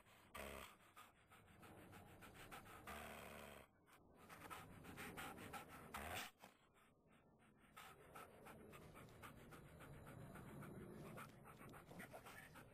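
Faint panting of a small puppy, with soft scuffing as it plays on a rug.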